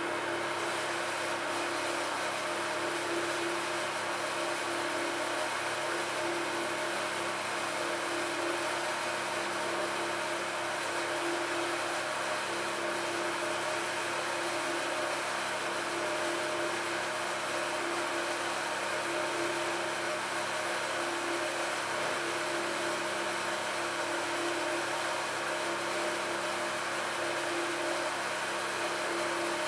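Benier Diosna SP 160 D two-speed spiral mixer running, its bowl and spiral hook turning, with a steady motor hum and one constant tone.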